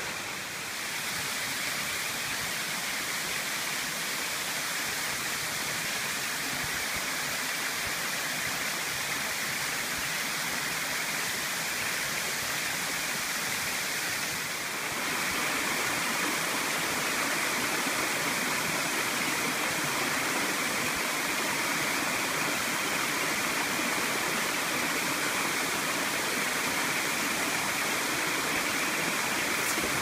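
Waterfall and stream water cascading over rocks, a steady rush that grows a little louder about halfway through.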